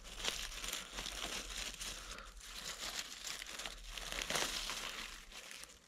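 Uneven rustling and crackling of dry leaves, twigs and undergrowth being trodden and pushed through, louder about four and a half seconds in.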